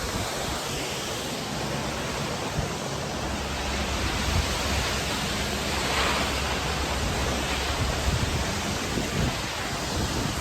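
Waterfall close up: a steady, even rush of falling water.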